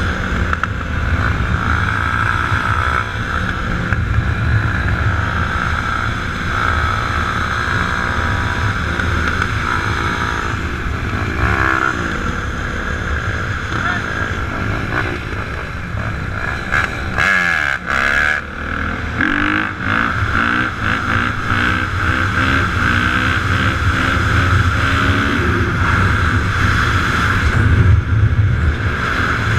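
Dirt bike and ATV engines running, with an engine revving whose pitch falls and climbs again a little past halfway.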